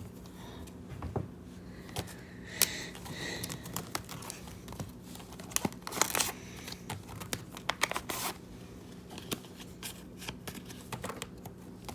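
Crinkling and rustling of packaging and trading cards being handled, a run of short irregular crackles with a few louder crinkles.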